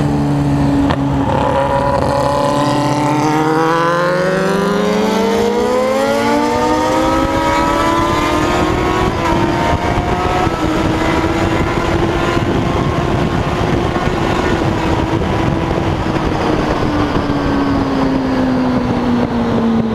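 Suzuki Bandit motorcycle engine through a straight-through Scooby exhaust pipe, loud. It holds low for a couple of seconds, then the note climbs steadily for several seconds as it accelerates, holds high, and eases down slowly near the end.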